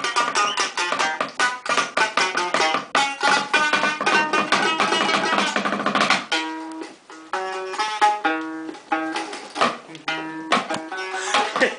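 Music on a plucked string instrument, much like a guitar: quick picked notes at first, then longer held notes from about halfway, with a little percussion.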